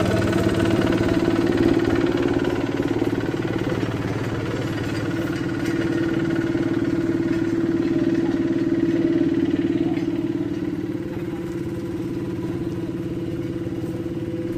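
Engine of a small walk-behind double-drum asphalt roller running steadily as it compacts fresh hotmix, getting fainter over the last few seconds.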